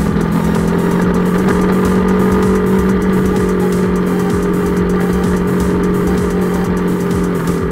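Kawasaki KLX250's single-cylinder four-stroke engine pulling steadily while the bike rides along, with a rough rumble of wind and road underneath. The engine note holds level and dips slightly near the end.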